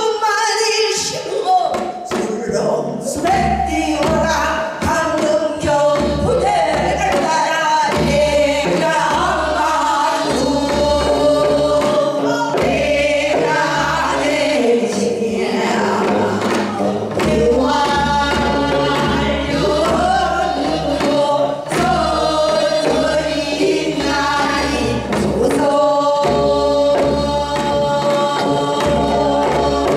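Several women singing a Korean traditional folk song together through microphones, in full-throated gugak style, over a low accompaniment.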